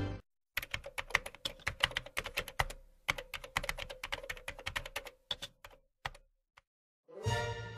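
Typing on a computer keyboard: a quick, uneven run of key clicks for about five seconds, then a few single clicks. Music comes in near the end.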